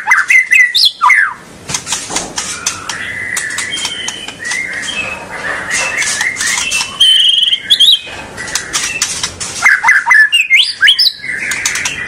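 White-rumped shama (murai batu) singing: a varied, continuous stream of rising and falling whistled sweeps mixed with rapid clicking chatter.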